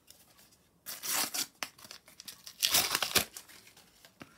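A Panini sticker packet being torn open: two rips of the wrapper, about a second in and again near three seconds, the second louder, with crinkling of the wrapper between.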